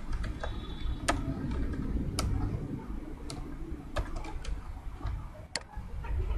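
Computer keyboard keys pressed slowly one at a time, sparse separate clicks about once a second, over a low steady background noise.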